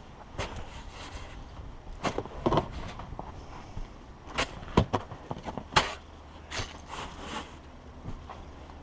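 Snow shovel scraping and chopping into packed snow in irregular strokes, with crunching as chunks are worked loose.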